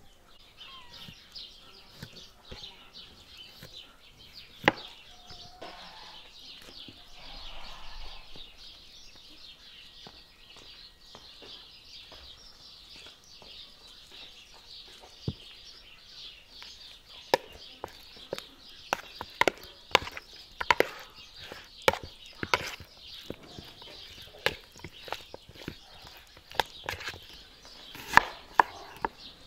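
Kitchen knife cutting an onion on a bamboo cutting board: sharp knocks of the blade striking the board, a few early on, then coming often and loud through the second half. A steady high-pitched hiss lies underneath.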